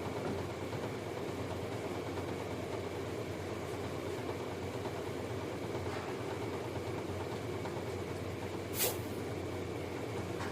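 Steady mechanical background hum and hiss, like a room fan or machine running, with one short sharp click near the end.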